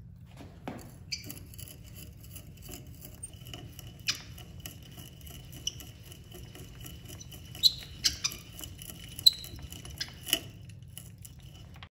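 Small creaking squeaks and scattered clicks over a steady low hum, with two sharper squeaks about two-thirds of the way through.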